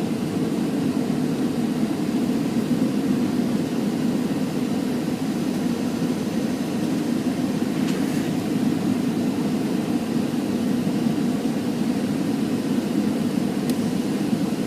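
Steady rush of engine and airflow noise heard inside the cabin of a Boeing 737 on approach.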